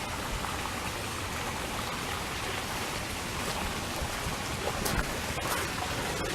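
Floodwater rushing steadily through an overflowing drainage ditch, a constant hiss of running water.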